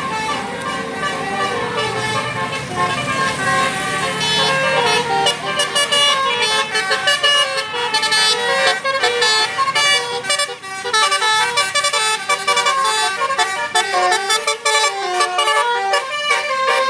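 Bus telolet Basuri horn, a multi-note melodic air horn, playing a quick tune of short stepping notes that comes faster and denser after the first few seconds.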